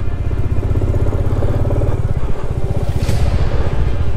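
Royal Enfield Classic 350's single-cylinder engine running steadily as the motorcycle is ridden along a sandy track, a fast, even stream of firing pulses.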